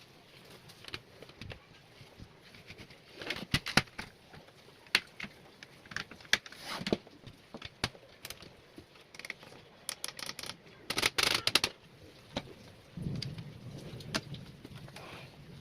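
Packaging and plastic parts of a laptop cooling pad being handled during unboxing: scattered clicks and taps, with a dense burst of rustling about eleven seconds in. A low hum comes in about thirteen seconds in.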